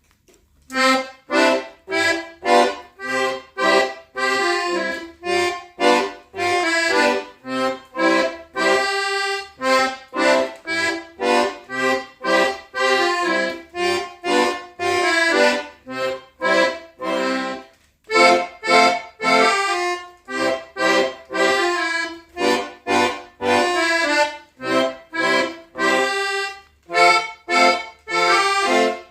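Accordion playing a tune in short, separate notes and chords, with a brief pause a little past halfway.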